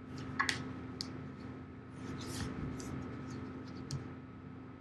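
Sketchbook being handled: soft paper rustles and a few light clicks and knocks as it is taken out and opened, over a faint steady hum.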